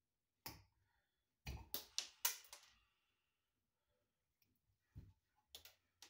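Sharp snips and clicks of wire cutters on electrical wire, shortening over-long switch leads: one snap about half a second in, a quick run of several a second later, and a few more near the end.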